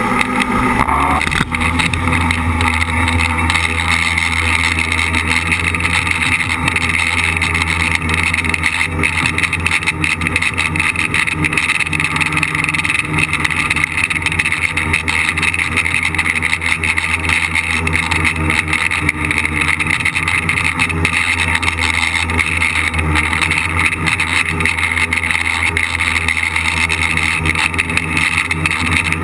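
Tricopter's three electric motors and propellers spinning up about a second in as it lifts off, then holding a steady buzzing whine in flight, heard close up from the camera on board.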